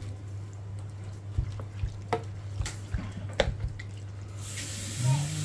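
Diced beef stirred and scraped with a wooden spatula in a pan of its own watery juices: scattered light knocks and wet bubbling, with a steady sizzling hiss setting in about four seconds in.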